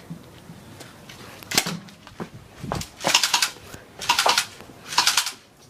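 Airsoft guns firing three or four short bursts of rapid shots about a second apart, after a single click.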